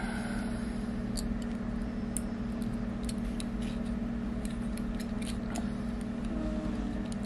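Faint, scattered clicks and ticks of a thin nickel strip being threaded through slots in a 3D-printed plastic part, over a steady low hum.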